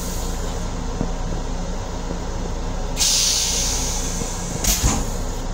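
Metro-North M7 electric railcar running, heard from inside its restroom as a steady rumble, with a short burst of hissing air about three seconds in and a couple of knocks near the end.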